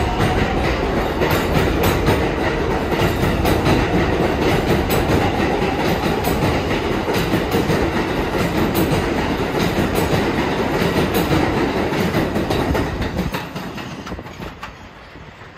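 An R188 subway train on the elevated 7 line running past, its wheels clattering over the rail joints. The noise fades away quickly over the last two or three seconds as the train moves off.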